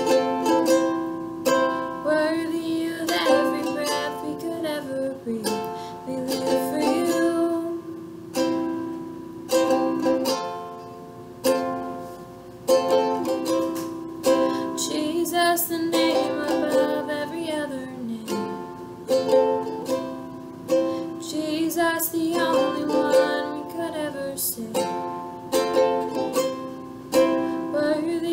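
Ukulele strummed in a steady rhythm, its chords ringing between strums as it plays a worship song.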